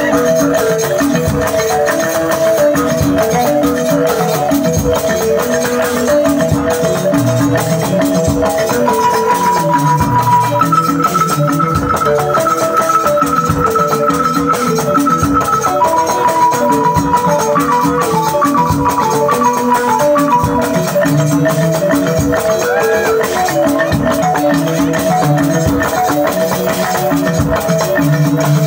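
Balani (small West African balafon) dance music: fast repeating melodic figures over a steady percussion beat. A high note is held for several seconds starting about ten seconds in.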